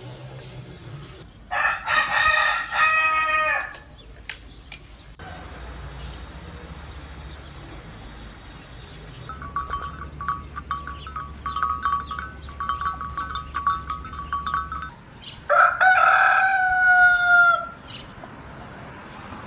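Rooster crowing twice, once near the start and again near the end, the second crow ending in a long drawn-out note. Between the crows, a rapid run of short repeated clucks from chickens.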